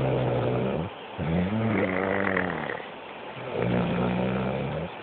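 Snoring: three long, deep snores, the middle one wavering in pitch.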